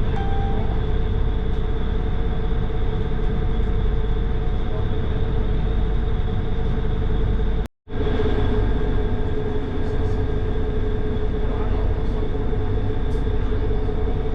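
Passenger ferry's engines droning steadily on board underway, a low rumble with a steady hum on top. The sound cuts out abruptly for a fraction of a second a little past halfway, then resumes unchanged.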